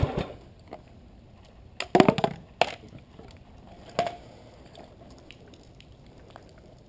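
Gas pressure washer engine cutting off at the start, then near-quiet broken by a handful of sharp metallic clinks and knocks, mostly around two seconds in and once more at about four seconds.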